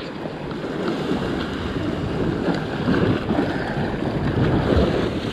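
Ocean surf surging and washing against a rock ledge, with wind buffeting the microphone.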